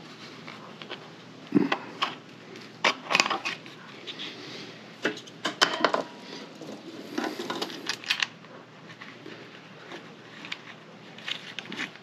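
Hand-fitting of a carburetor and plastic air-filter base onto a small engine's mounting studs: scattered sharp clicks, knocks and rattles of plastic and metal parts, in several short clusters, sparser toward the end as a nut is threaded on by hand.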